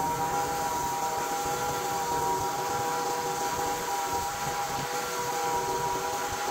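Portable band sawmill running under load, its engine and band blade cutting through a white oak cant with a steady whine.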